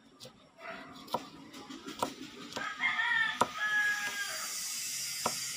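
Chef's knife chopping garlic on a wooden cutting board, a few sharp, spaced chops. A rooster crows about three seconds in, and a steady hiss builds near the end.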